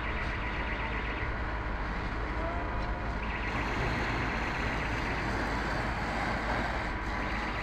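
Steady noise of a fire-fighting operation: a fire engine pump running under a constant hiss. A high ringing rattle comes and goes three times.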